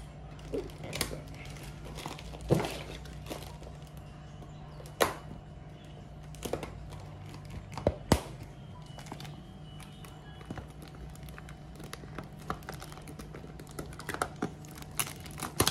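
Plastic fish shipping bag being handled and worked open by hand: scattered sharp clicks and knocks with light crinkling of the tightly tied bag, over a steady low hum.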